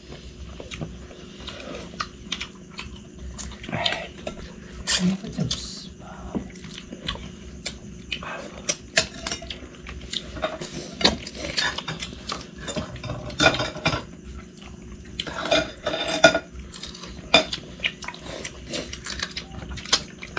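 Spoons and forks clinking against ceramic plates and a soup bowl as people eat blue crabs and soup. The clinks come in an irregular scatter of short, sharp clicks.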